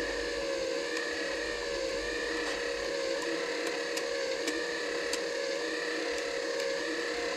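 MIG welder's wire-feed motor running, drive rollers pushing 0.8 mm wire through the torch hose: a steady motor whine whose pitch wobbles about twice a second, with faint ticks.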